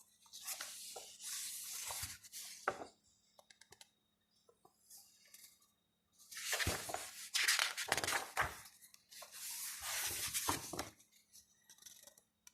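Paper and card rustling and sliding in two stretches as the printed pieces of a CD album package are handled, with a few light taps and clicks in the pause between them.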